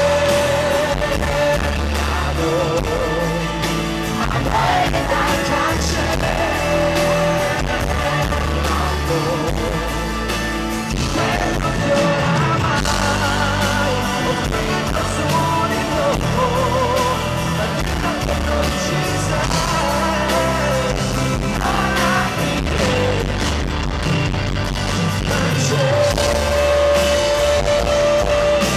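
Live pop band playing, with heavy bass and drums under a male lead singer's long, wavering sung notes, recorded from the crowd.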